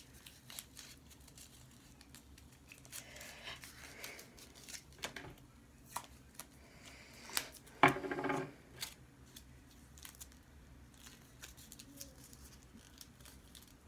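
Scissors snipping a thin strip to make a small pin, with light handling and crinkling between the cuts. There is a louder short rasp about eight seconds in.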